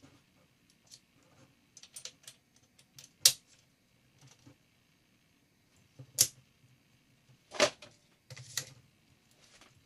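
Sharp clicks and clacks of metal rifle parts and the folding stock adapter being handled and fitted, with three louder snaps; the loudest comes about three quarters of the way through.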